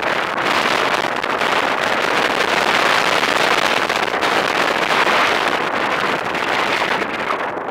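Wind rushing over the camera microphone in paraglider flight: a loud, steady rush of airflow noise that swells slightly and eases again.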